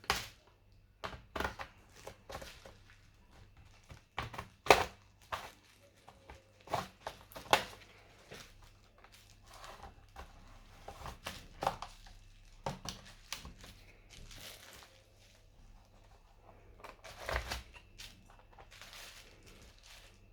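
Hands and tools working on a laptop's plastic case: irregular clicks, taps and plastic crackles, with a few louder knocks.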